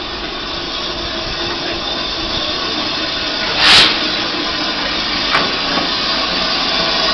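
Steady hiss of escaping steam from BR Standard Class 7 Pacific steam locomotive No. 70000 Britannia at close range, growing slightly louder. A brief, louder rush comes about three and a half seconds in, and a short click follows about two seconds later.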